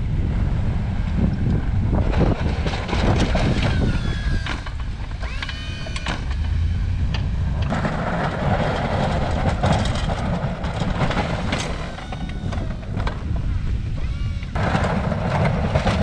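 Ford F-250 pickup with a Fisher blade plowing deep snow: the truck's engine rumbles steadily under load while snow hisses and scrapes along the blade, loudest from about halfway through and again near the end. A few brief squeaks come through now and then.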